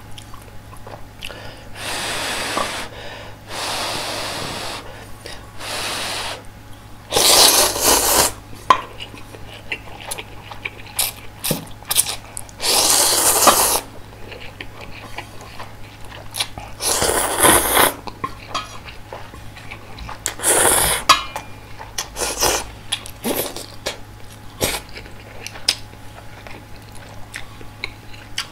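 Instant ramyeon noodles slurped up loudly in four long pulls, with wet chewing and small mouth clicks in between. Two softer breathy sounds come in the first few seconds.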